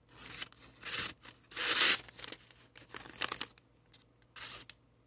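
The blade of a vintage Schrade Old Timer 154OT fixed-blade hunting knife slicing through a paper receipt in about five short ripping strokes, the loudest about two seconds in. The paper rips rather than being cleanly sliced: the edge is not sharp enough and needs more work.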